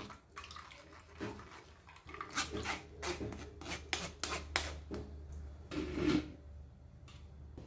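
Metal spoon scraping and pressing watermelon pulp against a stainless steel mesh strainer: a quiet run of short scrapes, mostly in the middle stretch.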